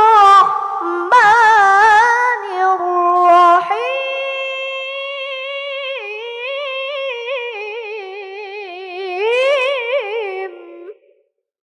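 A boy reciting the Qur'an in melodic tilawah style into a microphone, his high voice winding through quick ornamented turns. After a few short phrases, one long line is held from about four seconds in and ends shortly before the end.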